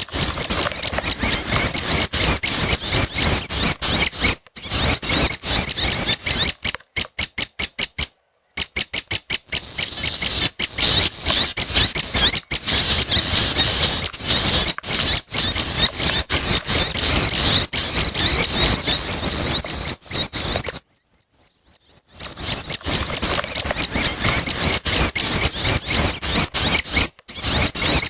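Prinia (prenjak) chicks' high, rapid chattering calls, with stretches of quick even pulses and brief breaks about 8 and 21 seconds in.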